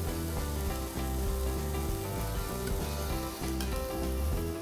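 Cauliflower florets sizzling in an olive-oiled grill pan, under background music with held notes.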